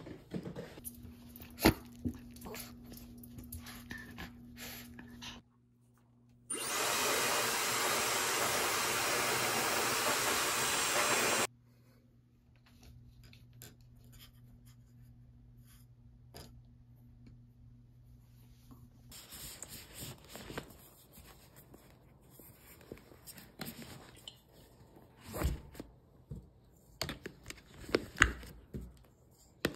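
Small handling sounds: taps, clicks and rustling as objects are picked up and packed into a cloth bag, with a few sharper knocks near the end. About a quarter of the way in, a loud, steady rushing noise runs for about five seconds and starts and stops abruptly.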